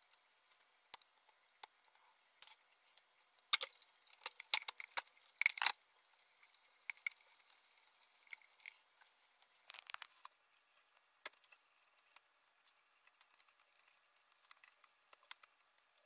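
Faint scattered clicks and rustles of electrical wires and plastic crimp connectors being handled and pushed into place, with a cluster of sharper clicks about four to six seconds in and a few more near ten seconds.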